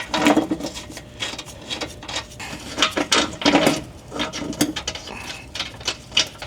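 Irregular metallic clicks and clinks of hand tools and bolts, with runs of quick clicking like a hand ratchet, as bolts are put back into a car's lowered subframe.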